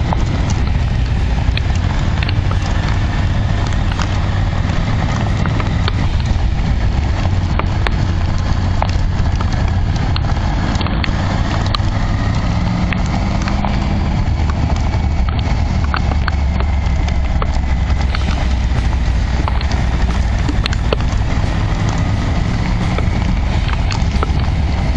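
Triumph Tiger 900's three-cylinder engine and wind rush at riding speed, with irregular sharp ticks of rain and hail striking the camera.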